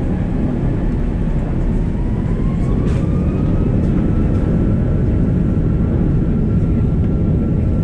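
Airbus A340-600's Rolls-Royce Trent 500 engines at takeoff power, heard from inside the cabin during the takeoff roll: a heavy, steady rumble with a whine that rises in pitch over the first few seconds as the engines spool up, then holds steady.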